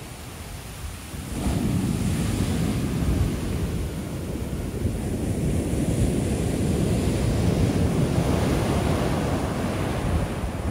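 Ocean shore break: after a brief lull, a wave breaks about a second and a half in, and the surf rushes and churns up the sand.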